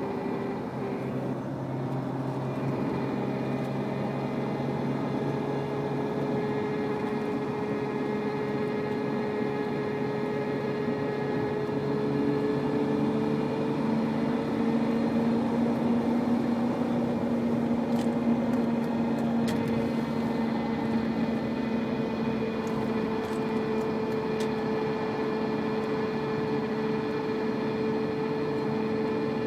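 BMW E36 323ti's inline-six engine running steadily, with a continuous hum and whine whose pitch shifts a little about twelve seconds in. This is the odd noise the owner has not identified.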